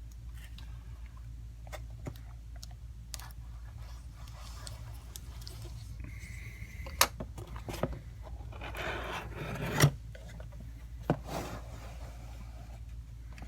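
A cardboard collector's box being opened by hand: scattered taps and clicks, with cardboard rubbing and scraping. Louder knocks come about seven, ten and eleven seconds in.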